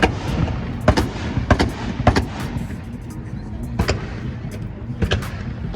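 Car exhaust banging on a two-step launch limiter: sharp, irregular loud bangs, about seven in all, over a steady engine rumble.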